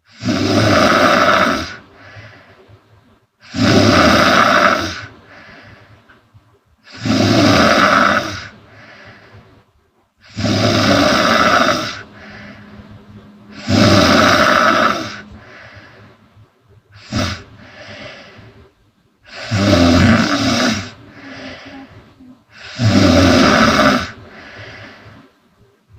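A woman snoring loudly in a steady rhythm: a loud rasping snore about every three and a half seconds, each followed by a softer breath.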